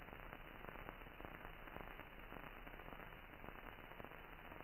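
Near silence: faint steady hiss with light crackle from an old film soundtrack.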